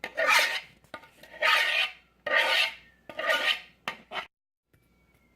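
Spoon scraping the sugared, cinnamon-coated apple pieces out of a bowl, in four rasping strokes about a second apart, followed by two light taps.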